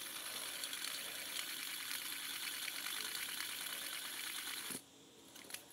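LED fidget spinner whirring on its bearing after a flick, a steady rapid whir that stops abruptly near the end when it is caught.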